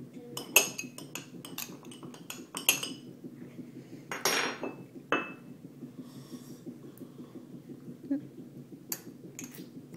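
Metal spoons clinking and tapping against bowls, a quick run of taps in the first few seconds, a longer scrape about four seconds in, and a couple more taps near the end.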